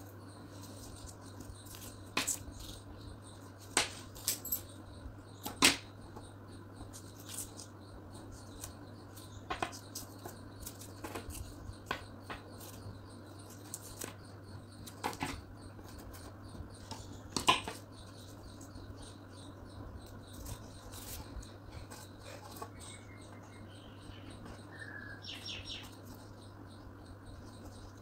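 Hands wrapping tape around the joined ends of a bent wire coat-hanger frame: scattered light clicks and taps of wire and tape being handled, the sharpest about five seconds in and again near two-thirds of the way through, over a steady low hum.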